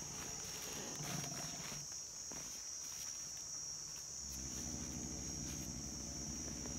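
Insects shrilling steadily in one high, unbroken tone, with a few rustles in dry leaf litter in the first couple of seconds. About four seconds in, a low, steady rumble sets in and holds.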